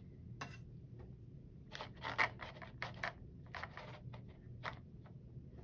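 Paintbrush bristles scrubbing in the wells of a plastic watercolour palette, working up paint: a run of short scraping strokes, loudest about two seconds in.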